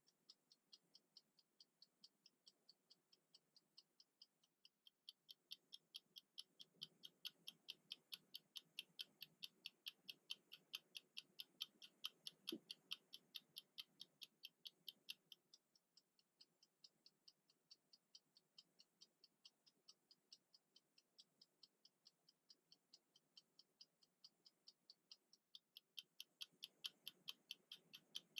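Mechanical 60-minute kitchen timer ticking rapidly and evenly as its clockwork runs down. The ticking is faint; it grows louder about five seconds in, softens around sixteen seconds, and rises again near the end.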